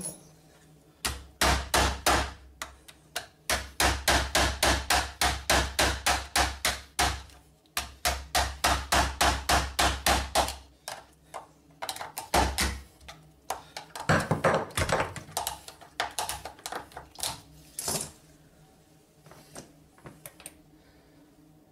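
Rapid metal-on-metal knocks as a screwdriver is driven again and again into a snapped ABS euro cylinder, about four to five strikes a second in long runs, then slower, irregular knocks and a few faint taps near the end. The cylinder's clutch mechanism has locked the central cam, so the blows find no way into the lock case.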